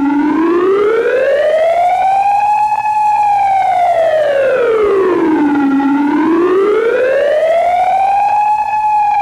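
Warning siren of the civil-defense kind, wailing loudly. Its pitch climbs and falls in long slow sweeps, about six seconds a cycle.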